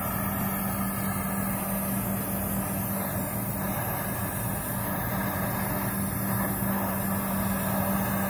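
Oxy-fuel gas welding torch burning steadily, heating the compressor's pipe joints to unbrazе them, with a steady low hum underneath.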